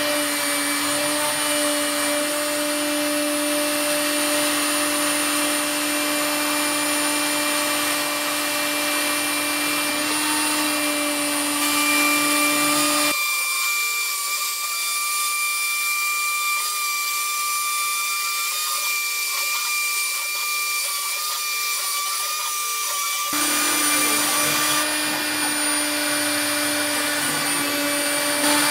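CNC router spindle running a 2 mm diamond-toothed cutter through 2 mm fibreglass (GFK) sheet: a steady high machine whine over the hiss of the vacuum dust extractor drawing through the brush shroud. The mix of tones changes abruptly about thirteen seconds in and switches back about ten seconds later.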